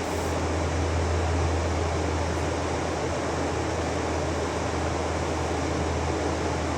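Steady rush of river water with a low rumble underneath.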